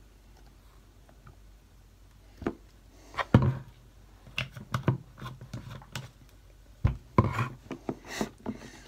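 A utensil stirring glue-based slime mixture in a plastic tub, with irregular knocks and scrapes against the tub that start a couple of seconds in and come loudest twice, about three and a half and seven seconds in.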